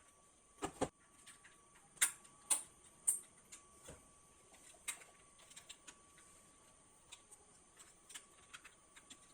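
Scattered sharp clicks and knocks of small plastic and metal PC parts being handled, as a processor and stock cooler are fitted onto a motherboard. The loudest clicks come close together in the first three seconds, then lighter ticks follow.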